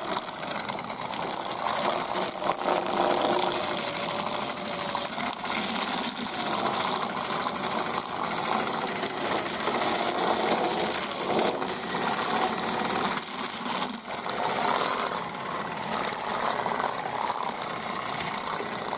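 Motor-driven rubber-finger chicken plucker running steadily, its fingers beating against a chicken held down in the barrel to strip the feathers.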